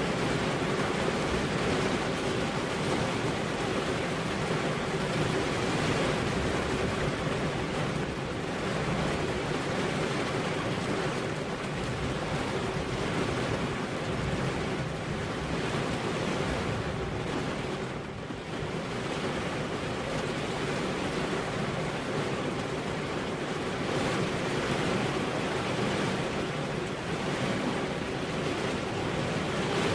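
Steady rain with wind, a continuous even hiss that briefly eases a little past halfway.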